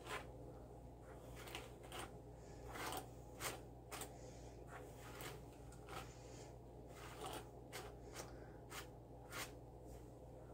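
Faint, irregular scratchy rustles of long hair being handled and stroked through, over a low steady hum.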